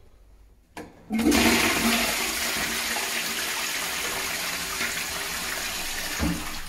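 Flush of a newly installed wall-hung toilet: a click from the flush plate about a second in, then a loud rush of water from the concealed cistern into the rimless bowl that slowly eases off. A short knock comes near the end.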